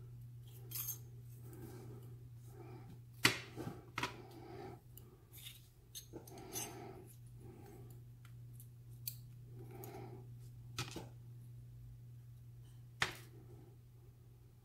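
Scattered small metallic clicks and ticks as metal tweezers draw brass pin-tumbler pins and springs out of a lock cylinder's chambers and set them in a plastic pin tray, a few sharper clicks among fainter handling sounds. A low steady hum runs underneath.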